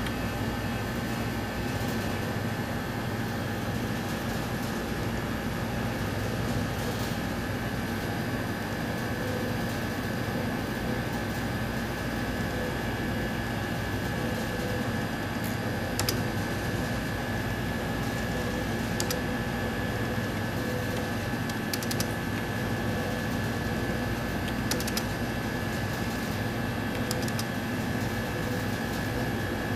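Steady hum of lab instruments and their cooling fans, with a constant high whine and a few scattered sharp clicks.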